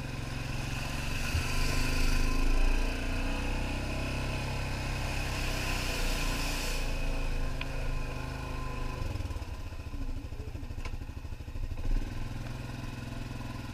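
ATV engine running steadily as the quad rides a muddy dirt trail, with a hissing wash of tyres through wet mud and puddles for the first several seconds. About nine seconds in the engine drops to a lower, evenly pulsing note as the rider eases off.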